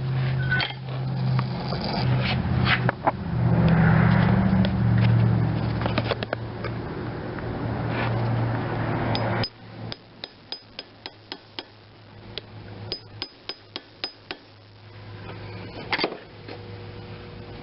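Clockwork spring motor of a 1912 Converse wind-up toy car left to spin freely: a steady whirring buzz with rattling clicks that cuts off suddenly after about nine seconds as the spring runs down. It is followed by a run of light clicks and a single knock near the end.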